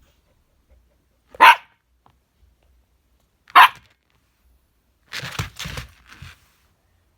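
A dog barking: two single sharp barks about two seconds apart, then about five seconds in a rougher, lower run of vocal sounds lasting just over a second.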